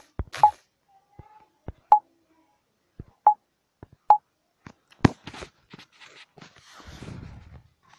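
Smartphone touchscreen key presses, each a short click with a brief beep, several spaced about a second apart as timer digits and buttons are tapped. Near the end comes a second or so of rustling handling noise.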